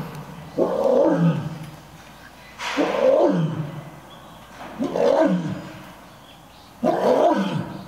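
Lioness roaring in a bout: four long roars about two seconds apart, each falling in pitch.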